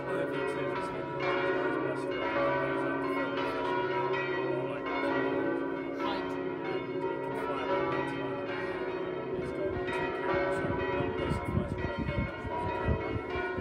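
Church bells pealing from a bell tower: many bells struck over and over, their tones overlapping and ringing on.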